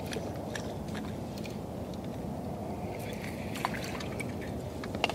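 Water lapping against a small boat's hull, a steady low wash with scattered light clicks and taps, and two sharper clicks near the end.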